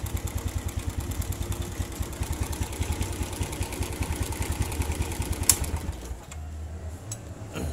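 Suzuki Smash 110's single-cylinder four-stroke engine idling with a fast, rough clattering knock (klotok), the sign of a loose timing-chain tensioner adjustment. A sharp click comes about five and a half seconds in, and the rhythmic beat fades out just after.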